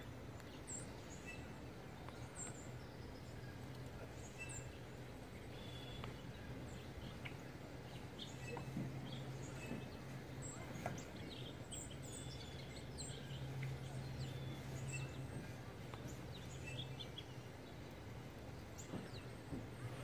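Birds chirping and calling in short, scattered notes over a steady outdoor hiss, with a low hum underneath that grows louder about midway.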